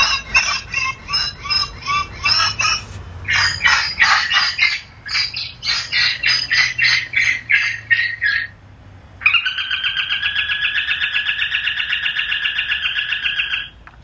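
Seagull distress calls played through the horn loudspeakers of a rooftop gull-deterrent unit, a rapid series of harsh calls at about four a second with a short break near three seconds. After a pause about a second long, a steady buzzing alarm tone sounds for about four and a half seconds and cuts off suddenly.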